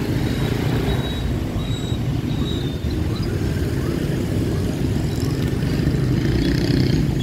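Steady city street traffic: engines of passing vehicles and road noise in a continuous low rumble.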